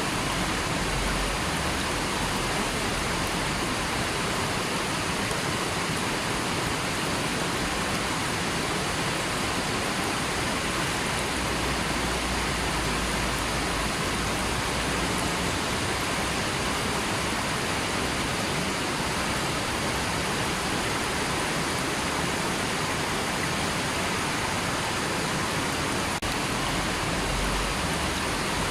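River water rushing steadily, an even, unbroken hiss with no distinct splashes or changes.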